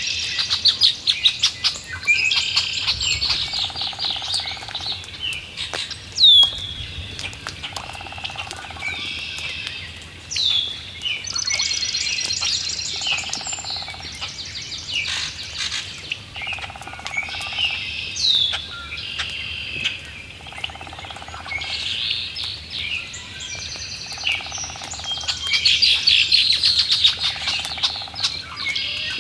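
Several birds singing and calling together in a marsh, with trills and quick downward-sweeping notes, and a lower call about a second long repeating every two to three seconds.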